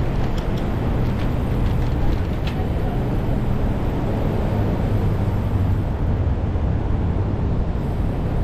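Steady low rumble of wind and road noise picked up by a camera mounted on a moving bicycle, with city traffic mixed in. A few light ticks in the first couple of seconds.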